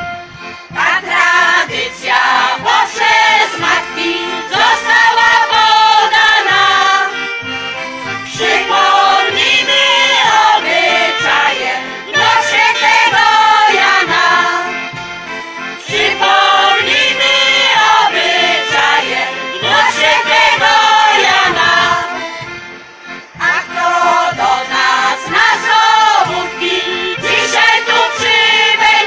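A Polish folk singing ensemble, mostly women's voices, singing a folk song together to accordion accompaniment. The song comes in verses, with brief breaks between them where the accordion carries on alone.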